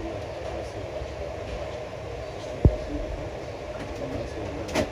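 Steady low background rumble and hum, with one sharp low thump about halfway through and a short sharp click near the end.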